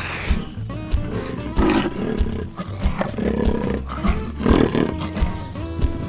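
Lion roars, three rough growling calls spaced a second or so apart, over background music with a steady beat.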